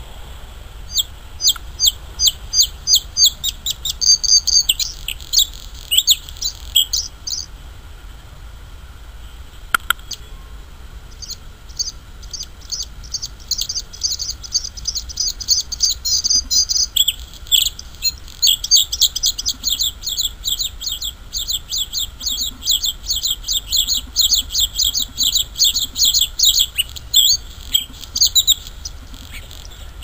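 Male bluethroat singing: long phrases built of fast runs of repeated high, ringing notes, with a short pause partway through.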